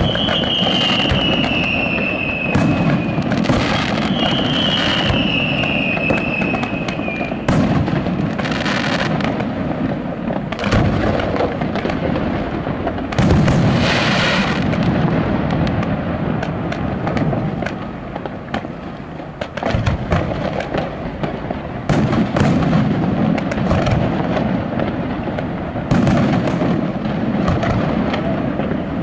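Aerial fireworks display: a continuous run of shell bursts, bangs and crackles over a low rumble. Two whistles falling in pitch sound in the first few seconds, and the loudest cluster of bursts comes about halfway through.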